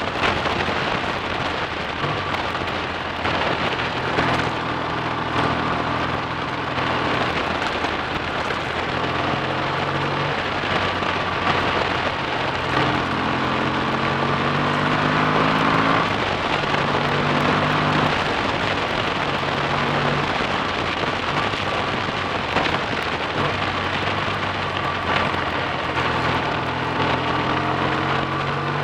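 BSA A65 Thunderbolt's 650 cc parallel-twin engine running on the road, its note climbing as it pulls about halfway through and again near the end. A steady rush of wind noise runs under it.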